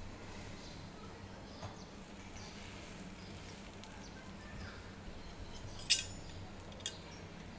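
Butter sizzling faintly in a hot nonstick pan with a sandwich frying in it, a light crackling hiss. A sharp click near the end is the loudest sound, with a lighter one about a second later.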